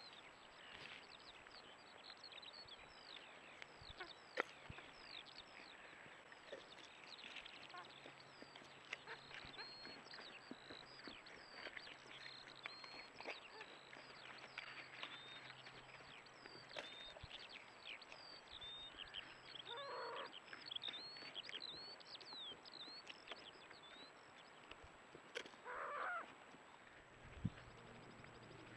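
Faint birdsong outdoors: a busy stream of rapid, short chirping calls, with two brief lower honking calls about twenty and twenty-six seconds in.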